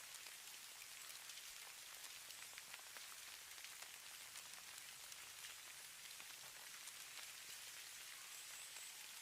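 Faint, steady hiss of falling snow, flecked with many tiny ticks as flakes or grains land on a surface.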